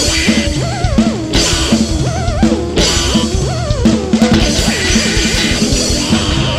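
90s indie rock song: a full band with a driving drum kit and electric guitars.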